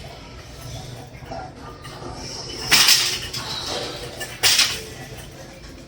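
Rotary milking parlour machinery humming steadily, with two short loud bursts of hissing noise about a second and a half apart.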